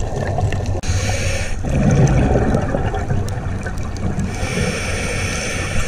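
Underwater sound through a diving camera's housing: a scuba diver's exhaled bubbles rushing past in two bursts, about a second in and again from about four seconds on, over a steady rush and rumble of water in the current.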